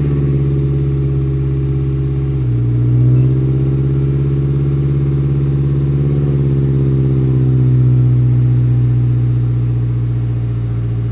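Car engine with an aftermarket exhaust idling just after start-up. The note is steady and low, steps up slightly a couple of seconds in, and swells gently a little later.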